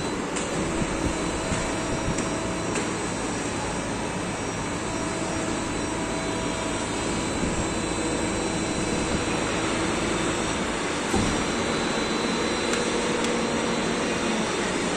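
Plastic injection moulding machine running: a steady mechanical hum and rush with faint steady tones in it, and a short knock about eleven seconds in.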